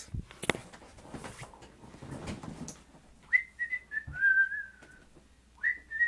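Rustling and a few knocks as someone gets up from a desk chair. Then a person whistles two short phrases of a tune, each a few notes stepping down in pitch.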